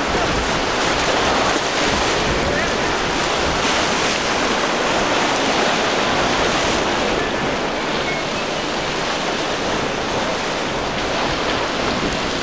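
Ocean surf and choppy waves with wind buffeting the microphone: a steady rushing wash.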